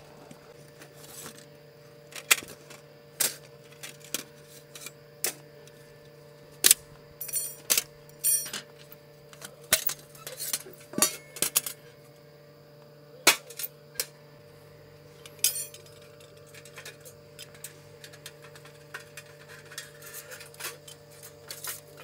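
Metal camping cookware clanking and clinking as a folding metal wood stove, its tray and grill plates are handled and fitted together: irregular sharp knocks, heaviest in the first two-thirds, then lighter clicks, over a faint steady hum.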